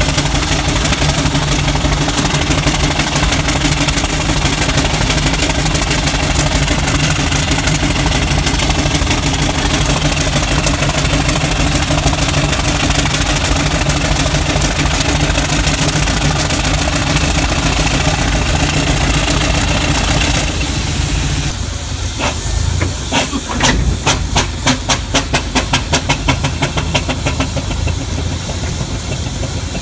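Steam traction engine running as it tows, a steady rumble with hiss of steam. About three-quarters of the way through the rumble drops away and its exhaust beats come through clearly as a quick, even chuffing, two or three puffs a second.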